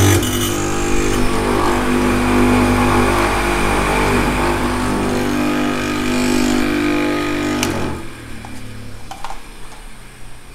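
Electric motor of a homemade knife sharpener running with its white corundum grinding wheel spinning, a steady hum; in the first half-second the last of the knife's grinding against the wheel is still heard. About three-quarters of the way through it stops with a click and the sound falls away as the motor winds down.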